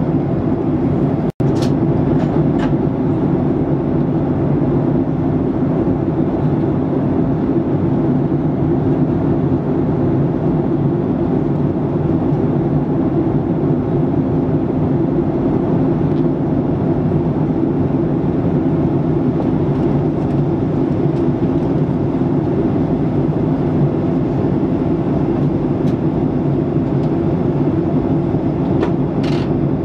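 Steady cabin noise inside a Ryanair Boeing 737-800 in flight on descent: the low, even rush of airflow and jet engines. The sound breaks off for a moment about a second and a half in.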